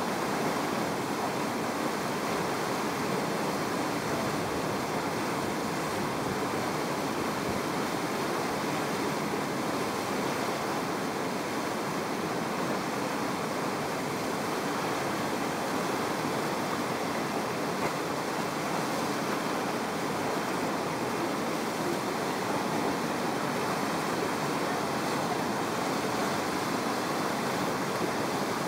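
River whitewater rushing steadily through a breaking standing wave, an unbroken noise with no rise or fall.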